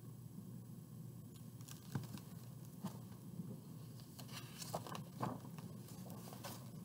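Paper rustles and a few soft knocks from a large picture book being handled and its page turned. The loudest knocks come about two seconds in and again around five seconds.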